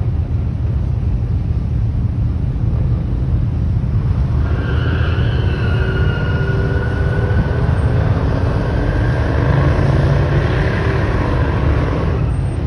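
Pickup truck engines rumbling steadily. From about four and a half seconds in, a high squeal of spinning tyres and a slowly rising engine note join as a truck revs in a burnout, then fade out near the end.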